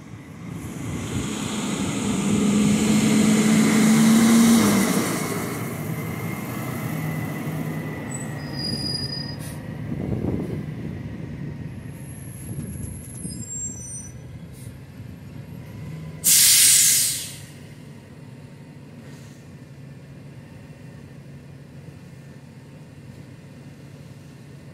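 Rear-loader garbage truck's diesel engine growing louder as the truck drives up, loudest about four seconds in, with a few short high squeaks as it comes to a stop. About sixteen seconds in, the air brakes release with a sharp hiss lasting about a second, and the engine then idles steadily.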